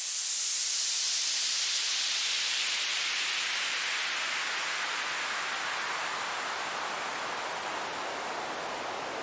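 White-noise downlifter from FL Studio's 3x Osc synth: band-pass filtered noise with some resonance, its filter cutoff sweeping slowly down so the hiss falls from very high to a lower, duller rush. It fades slightly as it sweeps.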